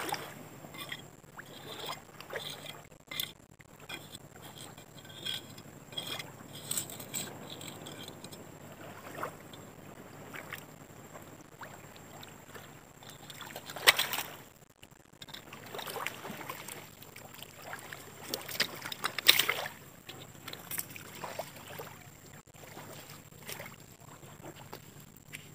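Shallow seawater sloshing and splashing as feet wade and a metal crab hook probes the sandy bottom, with two louder splashes about 14 and 19 seconds in.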